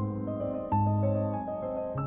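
Background music: a piano playing slow, sustained notes, with a new chord struck about two-thirds of a second in and another near the end.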